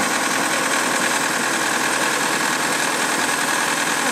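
Inline four-cylinder 3.0-litre boat engine idling steadily with the engine cover off. It is being run to draw fuel stabiliser through the carburettor while the boat is winterised.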